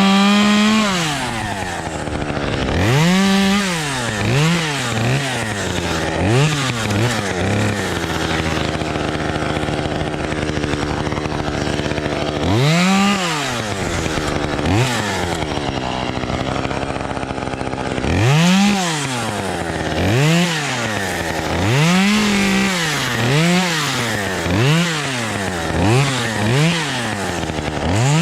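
Two-stroke chainsaw engine revved again and again, each time climbing in pitch and dropping back to idle. It settles at a steady idle twice for a few seconds, and near the end is blipped about once a second.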